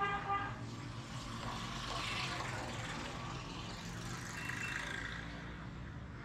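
Busy street traffic: small motorcycle engines running and passing close by under a general street din. A short pitched sound right at the start is the loudest moment, and another comes about four and a half seconds in.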